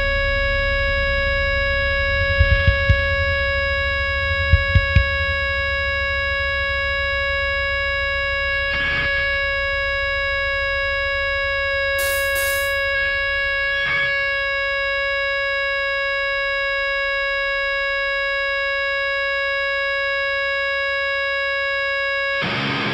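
Distorted electric guitar droning on one steady, unchanging pitch through an amplifier, with a low amp rumble underneath. Two quick sets of three clicks come about two and a half and four and a half seconds in, and the full band crashes in at the very end.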